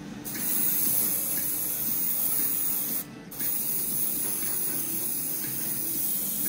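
Airbrush spraying grey paint in a steady hiss, cut off briefly about three seconds in as the trigger is let go and then pressed again.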